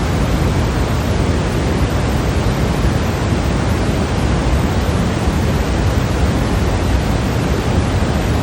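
Steady synthetic white noise: a constant, unchanging hiss and rush, fullest in the low end, with no other sound.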